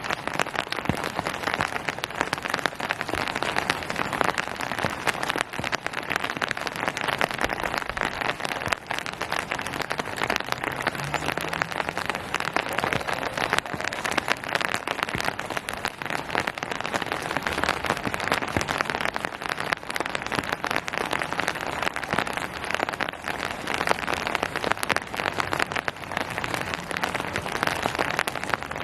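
Steady rain falling on surfaces, a dense patter of individual drops.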